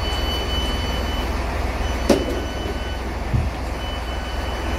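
A stopped passenger train's door-warning tone sounds in long steady beeps, three in all, as the doors open. Underneath runs the train's steady low rumble, with a sharp click about two seconds in and a low thump a little later.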